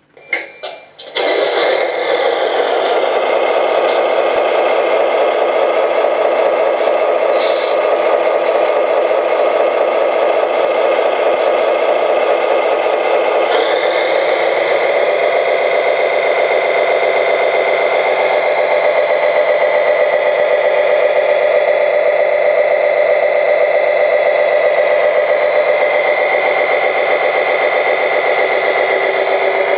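Simulated diesel truck engine from an RC model fire engine's sound module: a start-up about a second in, then steady idling through the speaker, changing in tone about halfway through.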